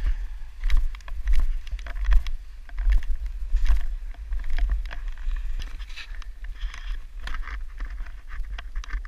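Wind buffeting a helmet-mounted camera's microphone as a gusting low rumble, with crunching and scraping of snow in short crackles throughout.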